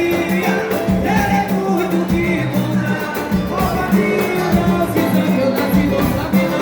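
A batuku song: a voice singing over a bass line and steady, driving percussion.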